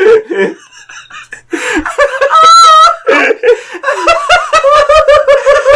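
Loud human laughter: after a brief lull, a high-pitched wavering squeal of laughter about two and a half seconds in, then a fast run of 'ha-ha' pulses, about five a second, near the end.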